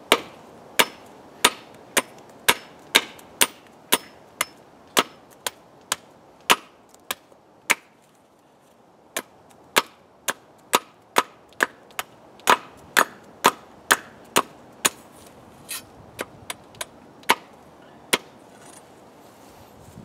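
Nature Xplore machete blade chopping into a stick held on a wooden stump, sharp chops about two a second, shaping a tent stake. The chops pause briefly about eight seconds in, then resume and turn softer and sparser near the end.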